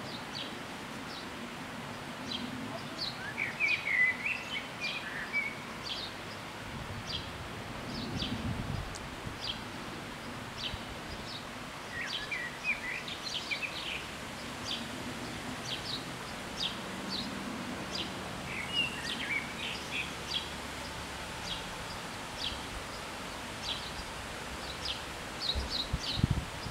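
Small birds chirping and singing in irregular short calls over a steady outdoor background hiss, with a brief low rumble about eight seconds in and another near the end.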